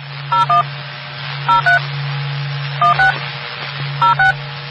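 Touch-tone (DTMF) beeps, two short dual-tone beeps at a time, four pairs about 1.2 seconds apart, over a steady low hum and hiss.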